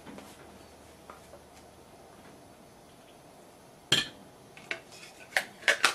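Quiet room tone, then about four seconds in a sharp knock followed by a few lighter clicks and taps. These are hard craft tools knocking on a tabletop as a brayer roller is set down and the next tool is picked up.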